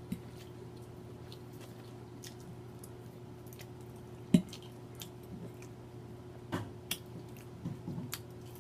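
Close-up mouth sounds of eating: chewing and wet smacking with scattered short clicks, a sharper click about four seconds in, over a steady low hum.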